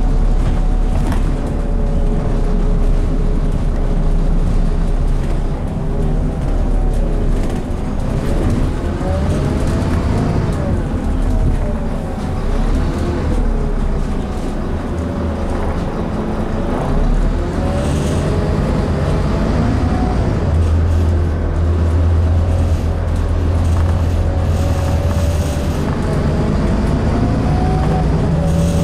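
Scania N230UD Enviro400 double-decker bus heard from inside the lower deck while driving: a steady low engine rumble with a whine that rises and falls in pitch as the bus speeds up and slows down.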